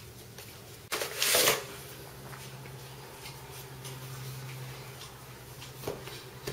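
Floured hands squeezing and pressing scallion-pancake dough onto a wooden board, with a brief loud rustle about a second in and a few light taps near the end. A steady low hum sits under it.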